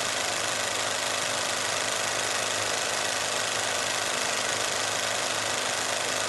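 Steady mechanical running noise: an even hiss over a low, constant hum, unchanging throughout.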